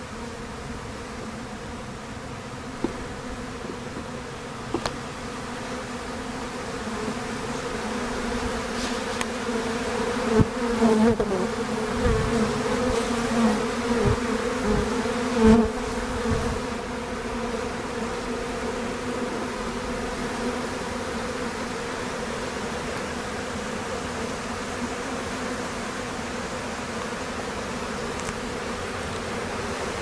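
Honey bees flying at a hive entrance: a steady buzzing hum of many wingbeats, with single bees passing close and louder between about ten and sixteen seconds in.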